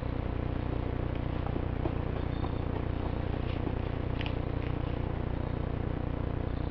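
Steady low rumble and hiss of background noise, with a few faint scattered ticks.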